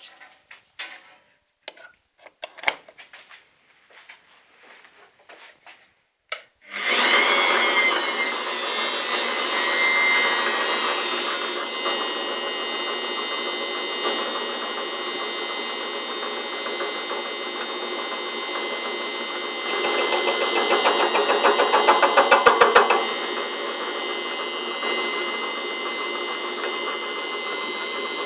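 Homemade metal lathe driven by a corded drill-driver. After some scattered clicks and knocks, it starts abruptly about seven seconds in and runs on loudly and steadily with a high whine. About twenty seconds in, a rhythmic pulsing swells louder for around three seconds, then settles back to a steady run.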